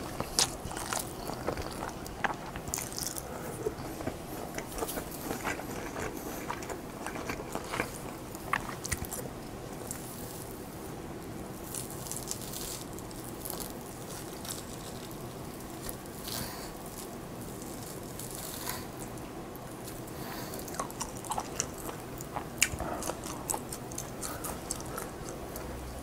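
A person chewing and biting food close to the microphone, with many short wet mouth clicks and crunches, busier in the first few seconds and again near the end.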